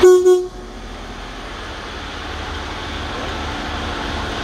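A short two-pulse train horn blast of about half a second, then the steady low rumble of a Class 150 diesel multiple unit's engines running.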